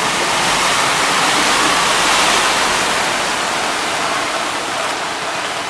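Minibus driving through a flooded street, its wheels churning and splashing the floodwater in a steady rush of water noise. The rush swells about two seconds in as it passes close and eases near the end as it moves away.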